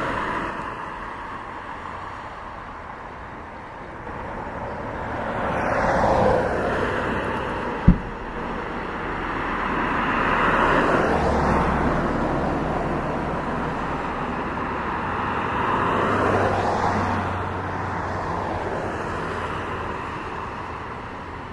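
Traffic on a two-lane road: several vehicles pass one after another, each swelling up and falling away in pitch as it goes by. A single sharp knock sounds about eight seconds in.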